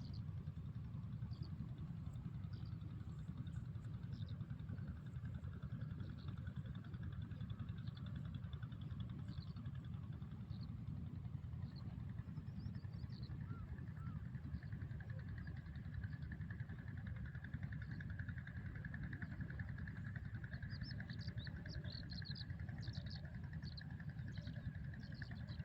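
Steady low rumble, with short high bird chirps scattered throughout and coming more often near the end.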